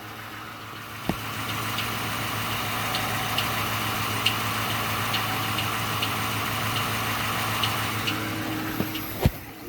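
2013 Dodge Charger engine idling steadily with faint, irregular ticking: the engine knock on this high-mileage car. There is a sharp click about a second in and a louder knock near the end.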